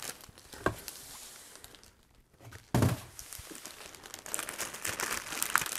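Clear plastic bag crinkling as a bagged toolkit case is lifted out of a cardboard box and set on a table, with two soft thumps, about a second in and just before three seconds in. The crinkling is densest in the second half.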